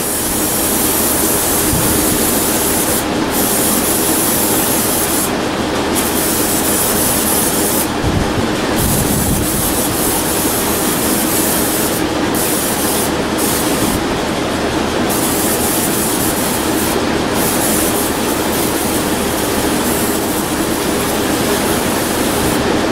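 Riding mower engine running steadily while an aerosol spray, starting fluid or carb cleaner, hisses into its intake in long bursts with short pauses; the engine is being kept going on the spray, a sign it is not getting fuel through the carburetor.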